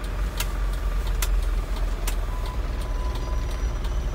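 Truck engine running steadily, heard from inside the cab while driving, with the turn-signal relay clicking about once a second.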